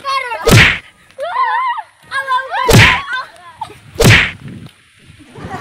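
Three loud, sharp whacks during a play fight, the second about two seconds after the first and the third about a second and a half later. High-pitched children's cries come in between.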